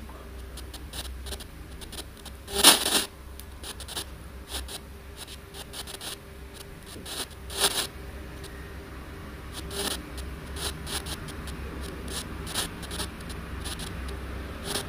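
Crackling static from a handheld ANC-Mini spirit-box radio device over a steady low hum: scattered clicks and short hisses, with a louder burst of noise about two and a half seconds in and another near eight seconds.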